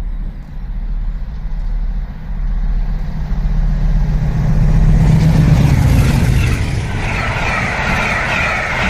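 Two Class 50 diesel locomotives, each with an English Electric 16-cylinder engine, running hard at speed. Their deep rumble builds to its loudest about five seconds in, then gives way to a higher rushing rattle of the train going past.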